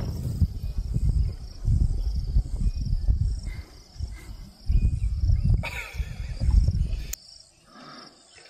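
Irregular gusty rumbling of wind on the microphone that dies down near the end, over a steady high insect drone, with a couple of brief sharp clicks late on.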